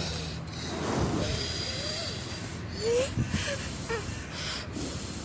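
Breath puffing close to the microphone as a person blows through a plastic bubble-wand toy, with a few brief faint child voice sounds.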